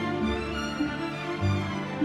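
Instrumental background music with a violin melody over sustained low notes.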